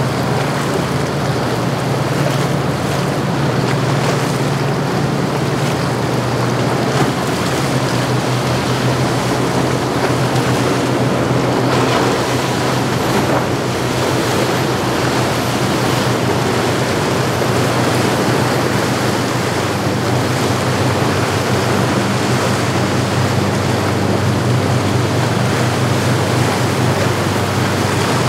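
Cruisers 560 Express motor yacht running at speed, its engines a steady low drone under the loud rush of its wake and surf, with wind on the microphone.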